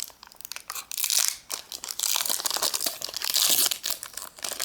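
Foil wrapper of a Pokémon trading-card booster pack crinkling and tearing open in the hands, with dense crackling and short rips.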